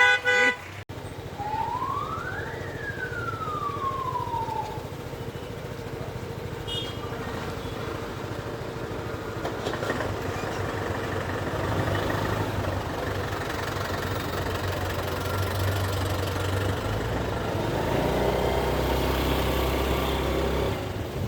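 Street traffic: vehicle engines running and tyre noise, with a horn right at the start and a single tone that rises and falls in pitch over about three seconds soon after. The engine rumble grows heavier in the second half.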